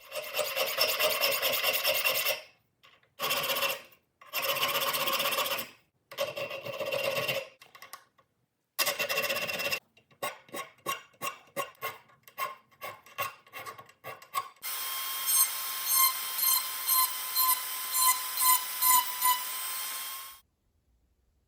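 Abrasive work on knife steel in short, abruptly cut clips of rasping strokes. A run of quick strokes follows at about two a second. Then comes a steady machine whine with regular louder pulses that stops suddenly near the end.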